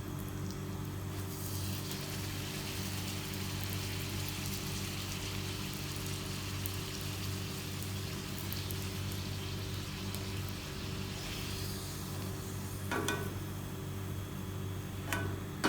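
Pooris deep-frying in hot oil in a kadai, a steady sizzling, over a low steady hum.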